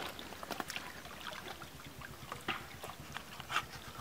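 Scattered small splashes and light knocks of water and fish in a shallow pool as they are scooped up with a metal bowl into a plastic basket.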